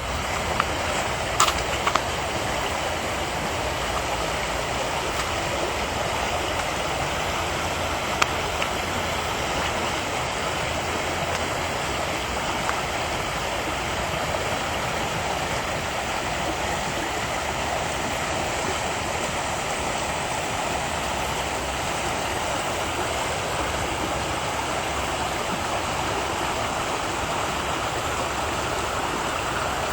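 Mountain stream rushing steadily, a continuous even water roar, with a few brief clicks in the first seconds and one about eight seconds in.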